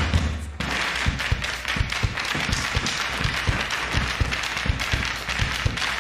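Audience applause breaks out about half a second in, as a held low note stops. Under it, drums and the dancers' stamping boots keep up a beat of low thumps, a few each second.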